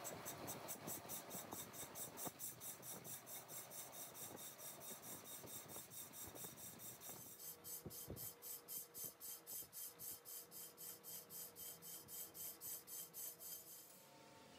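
Rhythmic rasping strokes on metal, very even at about four a second. They stop shortly before the end, typical of hand filing or scraping in metal repair work.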